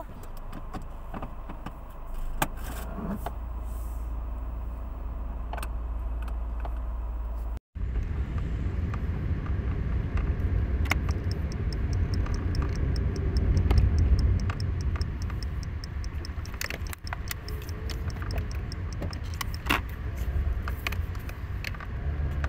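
Inside a car: a steady low engine hum with scattered small clicks, then, after a brief cut about eight seconds in, the louder rumble of the car being driven, with light rattles and clicks over it.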